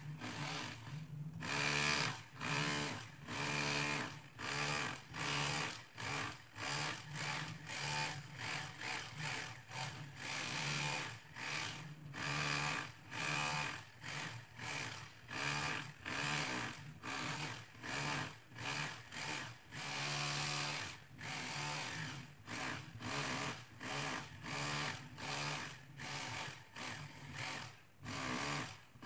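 Power tool chipping out old ceramic floor tiles, working in short repeated bursts roughly once a second over a steady motor hum.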